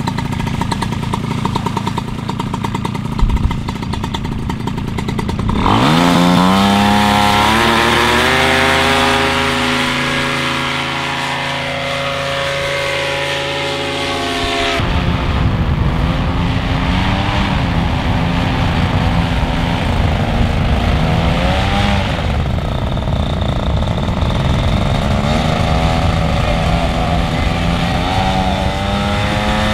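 Paramotor engine throttling up sharply about six seconds in, then running at high power, its pitch wavering up and down as the paramotor flies. The sound shifts abruptly about halfway through.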